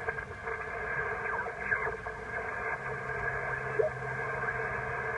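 Amateur HF transceiver's speaker playing single-sideband receive noise while the operator listens for answers to his CQ DX call: a steady hiss held within a narrow receive passband, with a few faint passing signals. A low steady hum joins about three seconds in.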